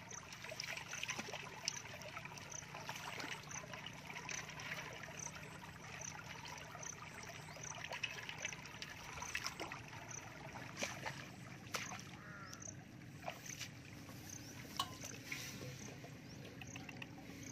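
Muddy water running and trickling steadily through a small channel cut in an earth bank, with a faint high chirp repeating about twice a second and a few light clicks.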